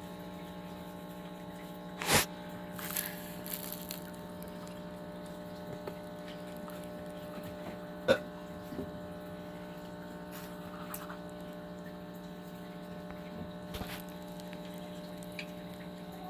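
Steady electrical hum made of several steady tones, broken by a few short sharp clicks or knocks about two, eight and fourteen seconds in.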